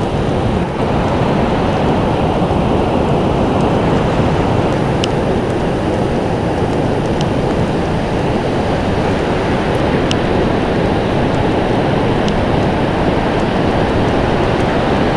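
Pacific Ocean surf breaking on a wide, flat sand beach: a steady, low, rushing wash of waves.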